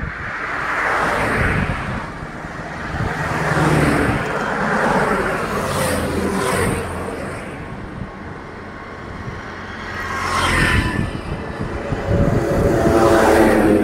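Highway traffic: a series of vehicles driving past, the engine and road noise swelling and fading with each pass.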